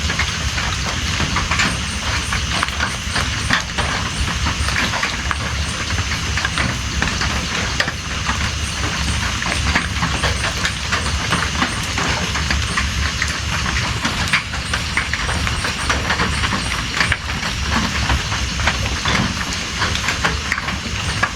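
Steady rain falling, a dense, even patter of drops over a low rumble.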